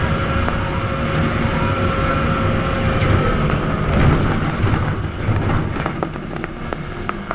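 Interior of a Belkommunmash BKM-321 trolleybus on the move: road and body noise with a steady electric whine that fades about three seconds in. A scatter of rattles and knocks follows in the second half.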